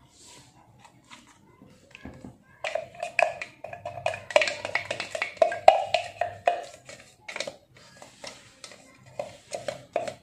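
Silicone spatula knocking and scraping against the inside of a glass blender jar to get the last of the spice paste out, making quick repeated taps that ring with the glass. The taps come in fast clusters, densest in the middle and again near the end.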